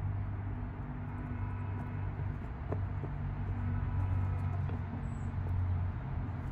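Chickens making soft, short low calls over a steady low rumble, with a couple of light clicks near the middle.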